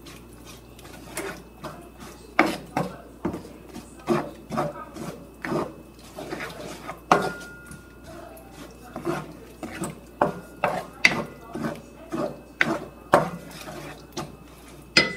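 Cooking utensils knocking and scraping in a steady working rhythm of about two strokes a second, a few strokes with a short metallic ring.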